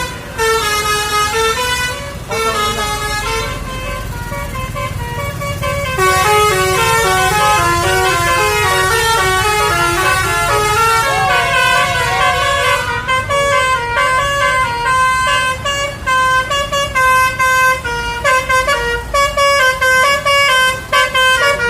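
Telolet basuri multi-tone musical air horns playing melodies of stepping notes, louder and fuller from about six seconds in, turning into rapid choppy notes in the second half.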